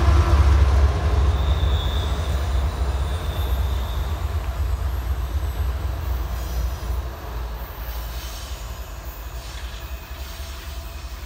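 Double-stack intermodal freight train with a rear-end CSX diesel locomotive rolling past and away, its low rumble fading steadily. A thin high squeal from the wheels on the rails comes about two seconds in.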